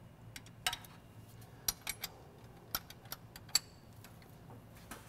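Open-end wrenches clinking against a brass fuel-line fitting as it is tightened: about ten light, sharp metal clicks at uneven intervals over a low steady hum.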